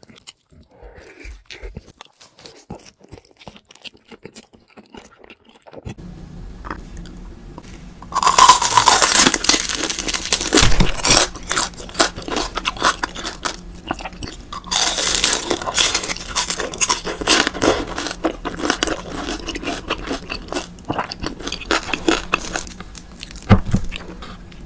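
Close-miked eating sounds: soft chewing for the first several seconds, then loud crunching bites and chewing of deep-fried beef large intestine (daechang) from about eight seconds in, with a second long spell of crunching a few seconds later.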